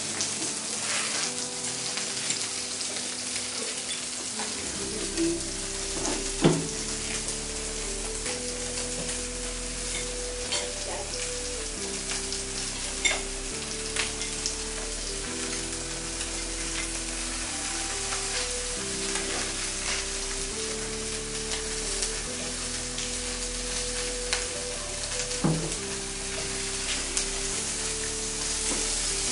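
Food sizzling as it fries in a pan, with a few sharp knocks, over soft background music whose bass line comes in about five seconds in.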